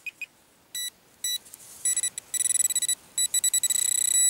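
Handheld metal-detecting pinpointer probe sounding: after a few faint ticks come separate high beeps, which quicken into rapid pulsing and then a steady tone near the end. This is the probe signalling a metal target close to its tip.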